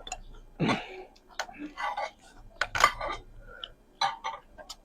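Table sounds during a meal: a run of short clinks and taps of utensils against dishes, with a few louder, fuller bursts among them.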